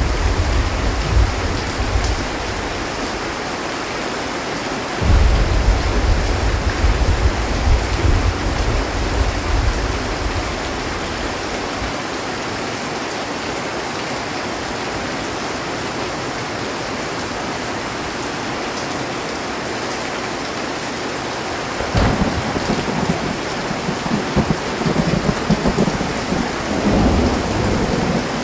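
Heavy rain pouring steadily on a metal roof, with thunder: a rumble dying away in the first two seconds, a sudden low rumble about five seconds in that rolls on for several seconds, and a sharp crack about 22 seconds in followed by rumbling until near the end.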